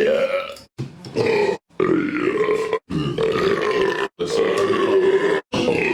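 A person burping over and over: about five long, pitched burps in a row, each around a second long and cut off abruptly by short silences.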